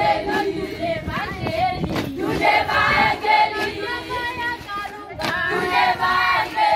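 A group of secondary-school students singing and chanting together in chorus.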